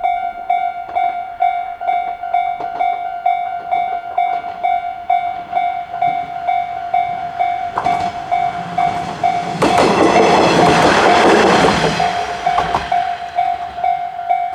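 Japanese level-crossing alarm ringing the JR standard electronic bell tone as an evenly pulsing ring. A single-car KiHa diesel railcar passes over the crossing in the middle: its engine and wheel noise swells up about eight seconds in, is loudest for a couple of seconds, then fades while the bell keeps ringing.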